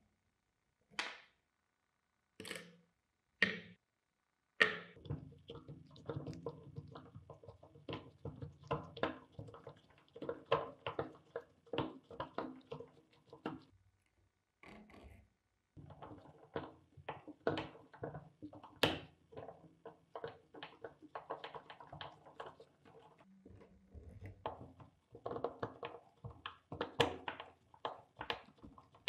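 Close-up clicks, taps and scrapes of small metal hand tools working on an old electric drill being taken apart: a few single clicks at first, then a dense run of small clicks and scraping as screws are worked out of the drill's aluminium gear housing.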